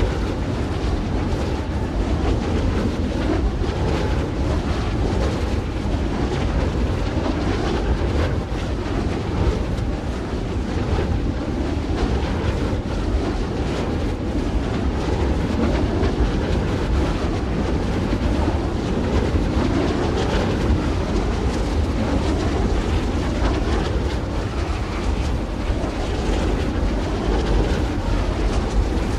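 Steady wind noise with a heavy low rumble, unbroken and even in level.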